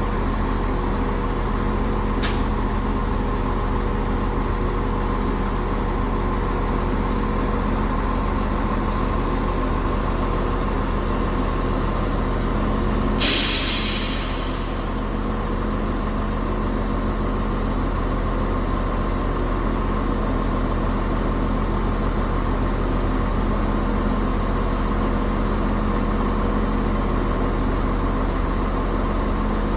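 Diesel passenger train standing at the platform, its engines idling with a steady hum. About 13 seconds in there is a sudden hiss of air from the train's brakes that fades out over a second or so.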